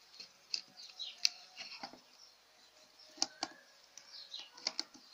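Hand screwdriver driving a screw through a plastic bottle cap into a coconut shell: scattered sharp clicks as the blade turns in the screw head, loudest a little over a second in, twice around three seconds, and twice near the end.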